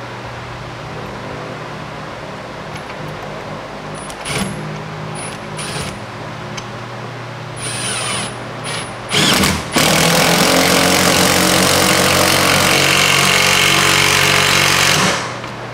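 Cordless impact driver hammering a lag bolt into a wall stud without a pilot hole. A few short bursts are followed by one long continuous run of about five seconds that stops shortly before the end. A fan hums steadily underneath.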